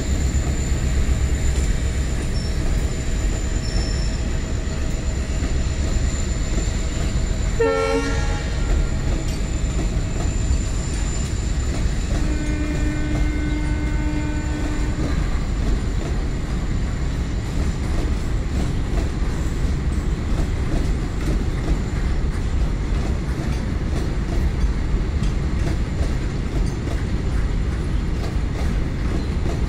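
A loaded freight train of BCNAHSM covered wagons rolling past at close range, with a steady rumble of wheels on the rails. A brief tone sounds about eight seconds in, and a steady horn-like tone is held for about three seconds near the middle.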